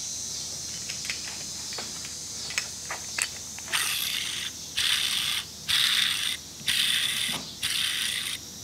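Crankshaft of a disassembled Stihl leaf-blower two-stroke engine handled in its crankcase, with small metal clicks at first. From about four seconds in it is spun by hand in about six quick rough metallic whirrs. The main bearing has play and is shot.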